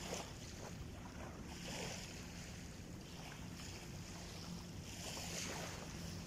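Quiet shoreline ambience: small waves washing softly on a sandy beach, the hiss swelling now and then, under a faint steady low hum.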